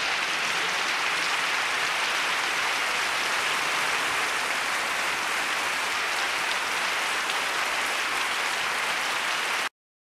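Steady applause from a crowd, a dense, even clapping that cuts off abruptly near the end.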